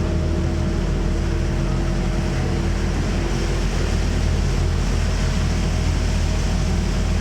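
Tour boat's engine running steadily with a low hum, and water washing along the hull, heard from on board.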